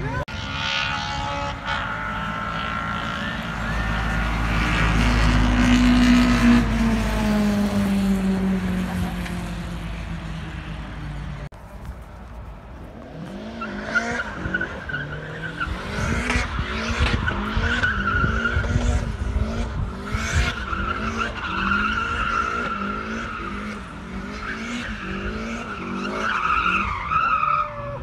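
Street-race cars accelerating hard, engine pitch climbing and then dropping as they go past. After a cut about eleven seconds in, an engine revs up and down over and over with a steady tyre squeal.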